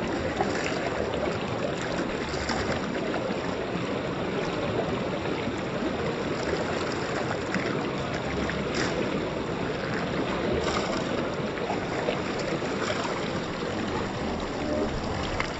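Shallow, stony river rushing steadily over rocks, with a few small splashes of hands scooping water.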